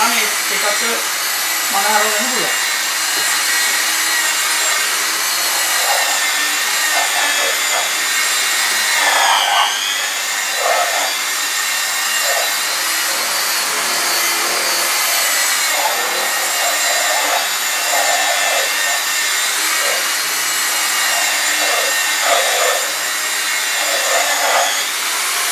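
Electric rotary car polisher running steadily with a foam pad buffing compound into car paint. Its motor whine holds a steady pitch, dipping briefly about nine to ten seconds in.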